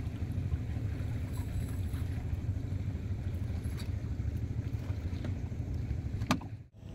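A steady low rumble, with a few faint clicks as a nylon cast net is gathered by hand against the side of a wooden boat. The sound drops out suddenly near the end.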